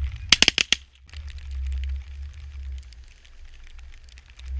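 Shotguns fired by several hunters in a fast volley: four or five shots within about half a second.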